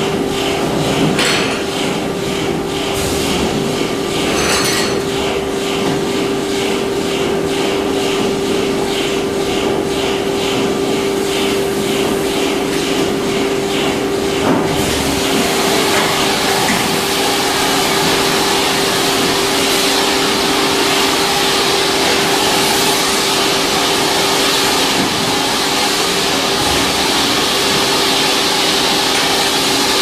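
Industrial vacuum system with a steady machine hum, and light knocks about twice a second as the corrugated suction hose is uncoiled and handled. About halfway through, a loud rushing-air hiss comes in and stays as the hose is connected to the stationary pipeline and suction draws through it.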